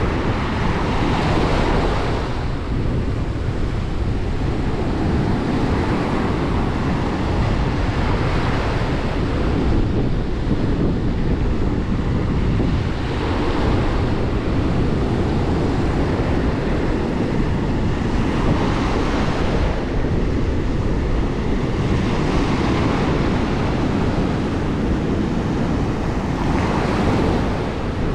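Ocean waves breaking and washing on the shore, surging every few seconds over a steady low rumble of surf, with wind buffeting the microphone.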